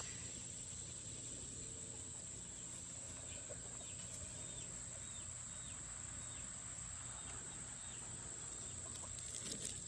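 Steady high-pitched insect chorus of crickets, with a run of short repeated chirps, about two a second, through the middle and a few light clicks near the end.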